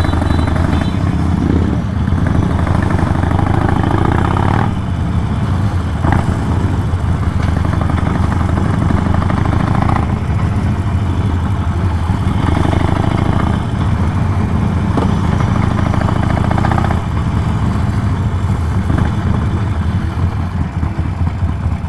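Motorcycle engine running steadily, with a continuous low rumble that dips briefly now and then.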